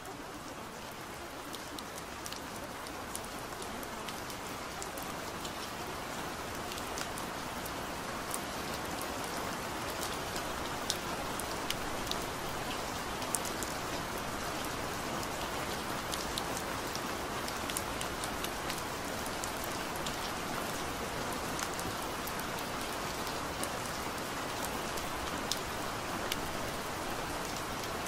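Steady rain falling: a dense, even hiss with scattered sharp drop ticks. It grows a little louder over the first ten seconds or so, then holds level.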